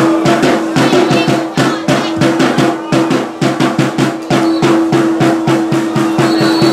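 Drums beating fast and evenly, about six beats a second, over a steady held low note.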